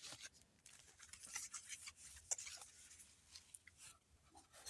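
Faint scattered taps and light rustles of packaged Pokémon booster packs being handled, close to near silence.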